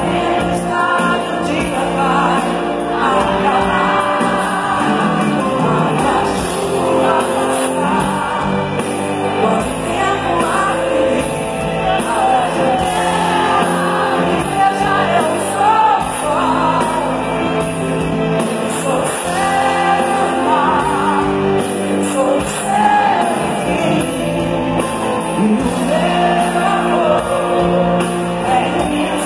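Female pop singer singing a song live with her band, heard through a large concert sound system.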